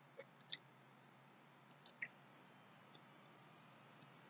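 Near silence over a low steady hum, broken by a few faint, short computer mouse clicks, the clearest about half a second and two seconds in.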